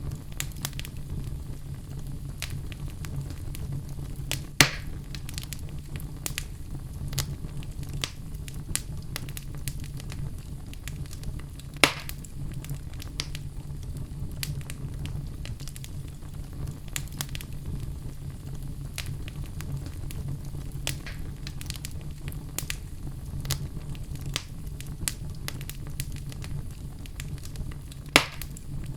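Wood fire burning in a fireplace: a steady low rumble of flames under constant small crackles and snaps. Three louder pops come about 5 s, 12 s and 28 s in.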